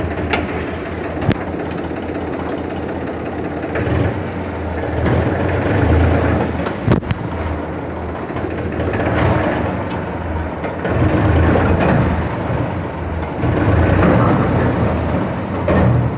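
Farm tractor's diesel engine running, heard from the driver's seat, swelling and easing several times as it is throttled while the tractor moves. A couple of sharp knocks stand out, about a second in and again about seven seconds in.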